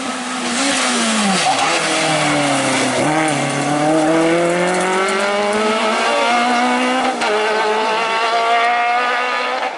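A rally car engine under hard throttle as a front-wheel-drive F2000-class rally hatchback passes and pulls away. The engine note drops as the car goes by, then climbs steadily as it accelerates, with a brief dip at a gear change about seven seconds in.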